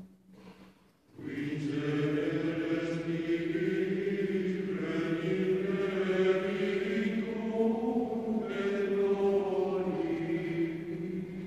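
Mixed chamber choir of men's and women's voices singing long, sustained chords in a large stone church. A short pause ends with the choir coming back in about a second in.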